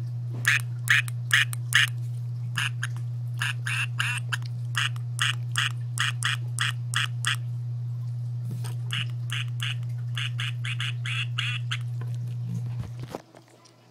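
Quick runs of light taps on the aquarium glass, about three a second with short pauses between runs, over a steady low hum. The tapping and the hum stop about a second before the end.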